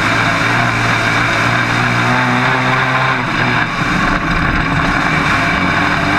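Dirt-track modified race car's engine running hard, heard from inside the cockpit over loud rushing noise. The steady engine note breaks up and turns rougher a little past halfway.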